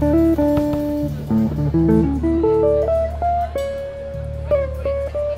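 Jazz trio of guitar, electric bass and drums playing: the guitar picks a stepping melody line over steady low bass notes, then holds a long note in the second half.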